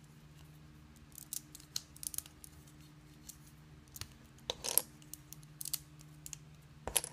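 LEGO plastic pieces clicking: flat plates being pried off a brick model and set down on a hard table, in scattered short clicks and taps, the loudest a little past halfway. A faint steady low hum runs underneath.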